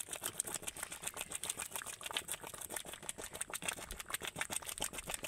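Thick rice-and-lentil khichuri boiling in a wide pan, bubbling and popping in a rapid, irregular run of small pops.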